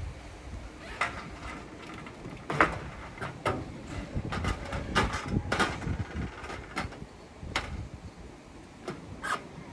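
Irregular knocks and clanks on metal roofing sheets during screw fastening, about a dozen sharp strikes spaced unevenly over a low rumble.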